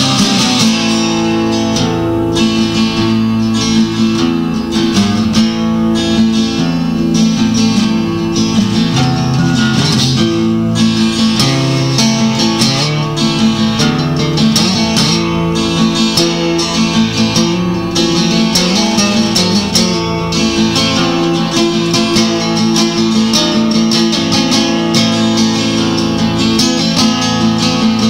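Music led by strummed acoustic guitar.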